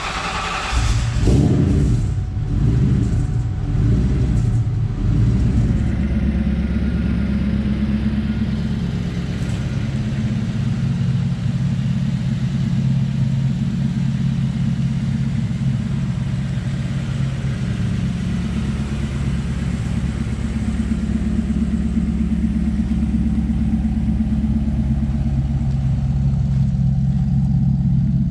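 Twin-turbo V8 of a Saleen Mustang, run by a newly fitted Holley Terminator X fuel injection, just fired up: it runs unevenly with a few blips for about five seconds, then settles into a steady idle.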